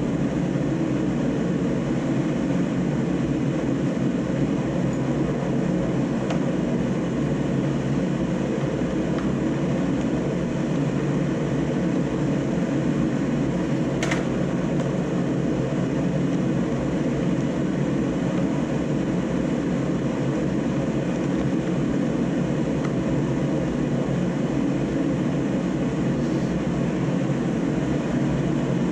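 Shop heater running with a steady, even rushing hum. There is a single small click about halfway through.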